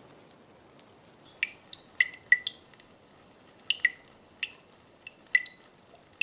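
Water drops plinking one after another at an uneven pace, starting about a second in. Each is a short, sharp drip with a brief high ring, as a dripping sound effect.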